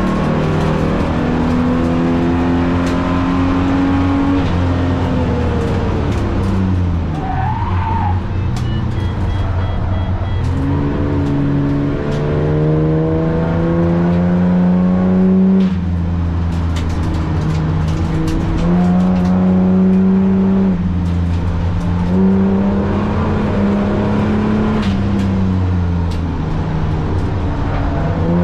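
Holden VT Commodore's V6 engine driven hard on track, revs climbing and falling with gear changes and braking, dropping low about a quarter of the way in before pulling up again. A short tyre squeal comes at that low point.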